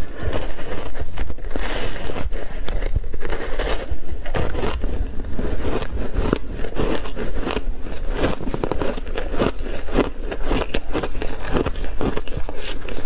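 Crunching of a frozen mixed-berry ice block coated in matcha powder as it is bitten and chewed: a dense, continuous run of sharp cracks and crackles.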